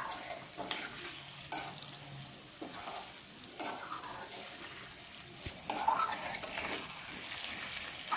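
A metal spoon stirring and scraping chunks of beef around a kadai in strokes about once a second, over a low frying sizzle as the last of the cooking liquid boils off and the beef starts to dry-fry.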